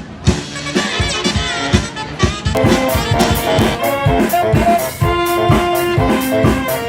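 Jazzy brass-band music: trumpet, trombone and saxophone playing held notes and short phrases over a drum kit with a steady beat, the horns growing fuller about two and a half seconds in.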